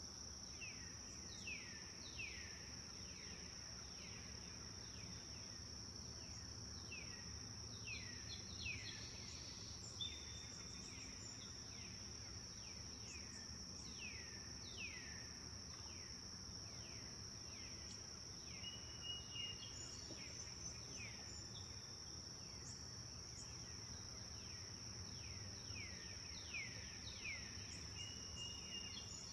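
Forest dawn ambience: a continuous high-pitched insect drone under repeated bird calls. Each call is a short note falling in pitch, coming about once a second, with an occasional brief whistled note from another bird.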